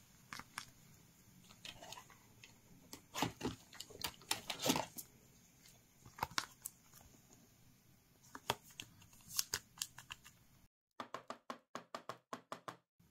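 Pokémon card being slid into a soft plastic sleeve and a rigid plastic toploader: scattered light plastic clicks and rustles from handling, with a quick run of small clicks, about four a second, near the end.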